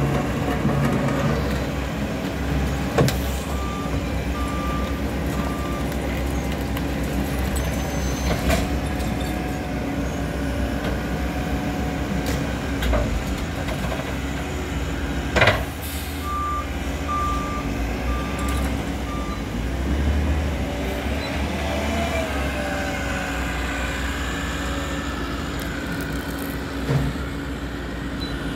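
Diesel engines of a Cat wheel loader and a rear-loader garbage truck running, with a reversing alarm beeping in two runs of four short beeps, a few seconds in and again a little past halfway. Sharp metal clanks as the loader dumps bulky junk into the truck's hopper, the loudest about halfway through.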